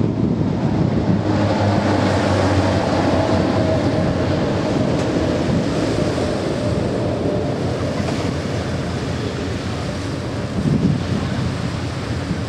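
Propeller engines of a four-plane formation of single-engine aircraft droning overhead, the tone slowly falling in pitch and the sound easing as they fly off, mixed with wind on the microphone.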